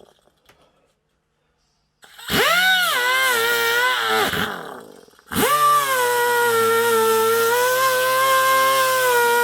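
Handheld electric power tool spinning up, running and winding down twice, while a small piece of sheet metal is being made: two runs with a rising whine at each start and a falling whine as each stops, the second run longer.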